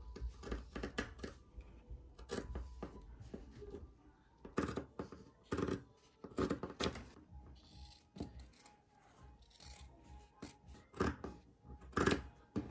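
Scissors cutting through quilter's cotton fabric: an uneven series of snips and crunches with short pauses between them.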